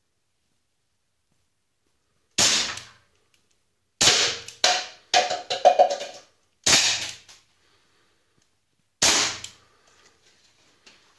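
Walther CP88 CO2 pellet pistol firing 4.5 mm pellets: about six sharp shots at uneven intervals, three of them in quick succession about four to five seconds in, with a brief metallic ring among them. Faint small clicks follow the last shot.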